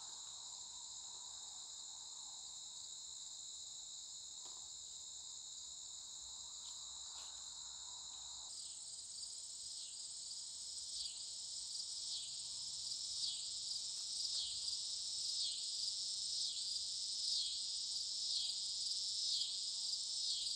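Chorus of singing insects: a steady high-pitched trill that changes about eight seconds in to an even pulsing chirp, repeating roughly every three-quarters of a second and slowly growing louder.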